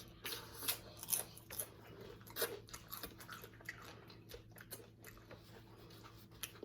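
A person chewing and crunching food close to the microphone, with irregular wet clicks and crunches that are busiest in the first few seconds.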